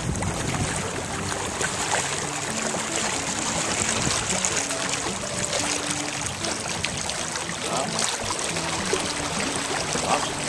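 Water rushing and splashing along the hull of a small catboat under sail: a steady wash with no let-up.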